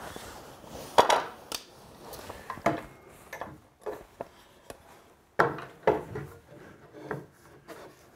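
Wooden tip-out panel and hinge hardware being handled and knocked against a wooden cabinet frame: a string of sharp wooden knocks and clatters, loudest about a second in and again about five and a half seconds in, with quieter scraping and handling between them.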